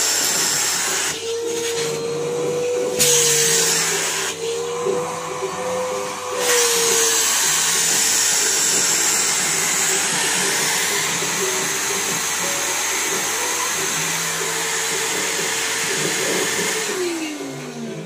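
Numatic Henry vacuum cleaner running, its hose nozzle sucking at a pair of sweatpants; the suction hiss and motor note waver as the fabric covers and uncovers the nozzle. Near the end the motor's pitch falls as it winds down.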